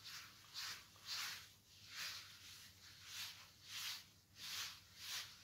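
Gloved hands kneading and mixing damp washing-powder mix (soda ash, white oil and sulfonic acid paste) in a plastic bowl: a soft rustling scrunch, repeated at a steady rhythm a little more than once a second.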